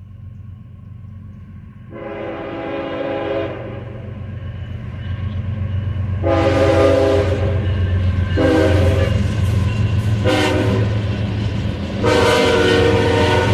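CSX freight locomotive horn sounding five blasts of several notes at once, the last four going long, long, short, long, the grade-crossing signal. Under it the diesel locomotive's engine rumble grows louder as the train approaches and passes.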